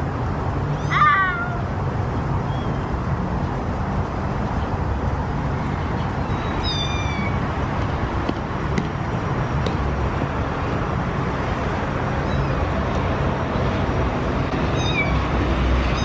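Kittens meowing on their first time outdoors, which they do not like: one clear meow about a second in, then fainter, higher-pitched meows now and then. A steady low rumble runs underneath.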